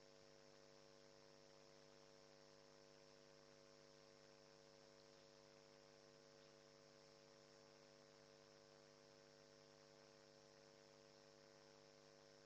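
Near silence: only a faint, steady electrical hum made of several even tones.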